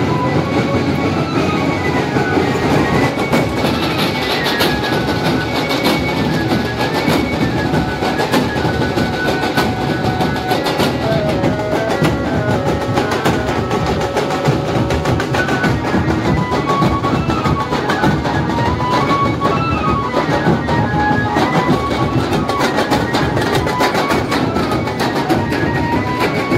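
Music with fast, busy drumming under a melody of short, stepping notes, loud and unbroken.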